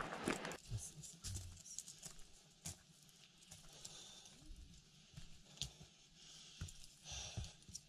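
Faint footsteps and scattered irregular taps of hikers walking on a gravel and grass path.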